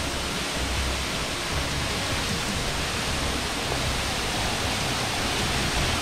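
Momoo Falls, a small waterfall, splashing steadily down rock onto stones: an even rushing hiss of falling water.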